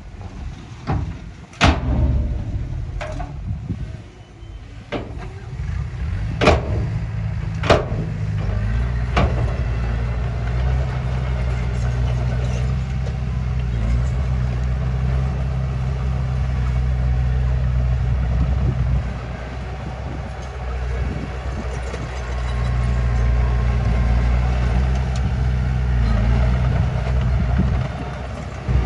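Diesel engines of a dump truck and a small bulldozer running, a steady low hum that dips briefly past the middle. Several sharp knocks come in the first ten seconds or so.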